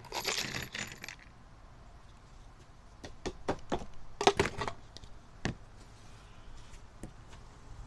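Small metal parts shaken and rattling in a plastic tub for about a second, then a string of separate sharp clinks as pieces are set down, loudest about four seconds in.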